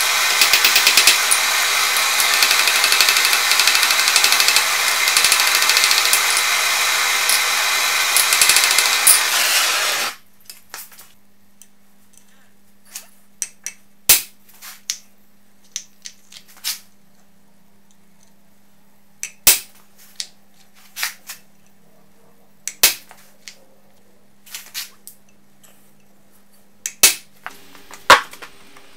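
Oxy-acetylene torch flame hissing steadily while it heats a steel rod, cutting off about ten seconds in. Then sharp metal clicks and taps as steel pins and the handle of a machined steel vise are fitted and handled, over a faint steady hum.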